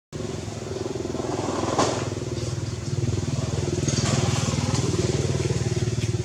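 A small engine running steadily, with a sharp click about two seconds in.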